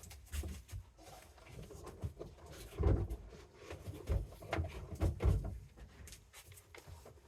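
A handful of separate knocks and dull thumps, with quieter rustling between them, as things such as a boxed plane are handled and set down.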